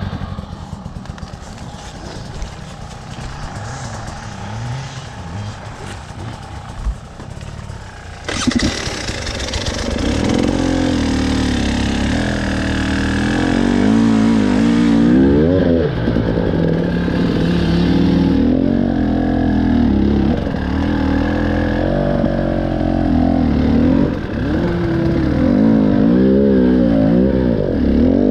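An engine runs at low revs. About eight seconds in it gets suddenly louder, then keeps revving up and down with a rising and falling pitch.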